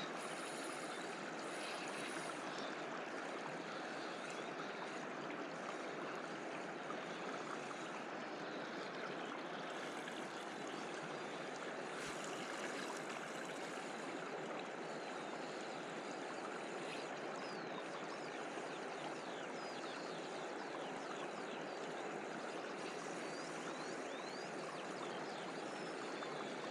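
Steady rushing of river water, even and unbroken.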